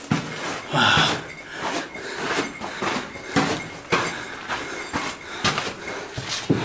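Footsteps scuffing on a dry sandy rock floor, irregular steps about once or twice a second, with rustling handling noise in between.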